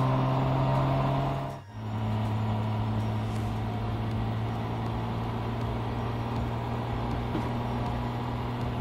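Porsche 718 Boxster GTS 4.0's 4.0-litre flat-six running at steady revs as the car cruises, a low even drone. It drops out briefly about two seconds in and comes back at a slightly lower pitch.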